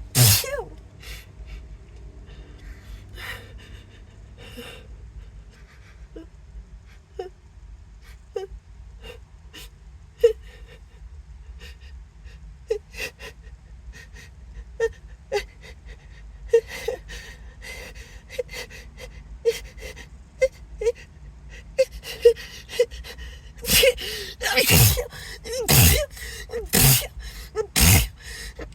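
A person's catching, hitching breaths as a sneeze builds, in the middle of a sneezing fit: small voiced gasps about once a second, then a run of louder gasps falling in pitch, about one a second, near the end.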